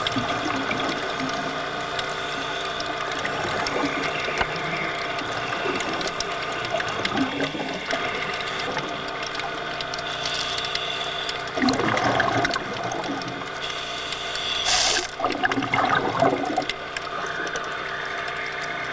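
Underwater sound of scuba divers breathing through regulators: exhaled air bubbles rush out in bursts, loudest twice in the second half, over a steady droning background.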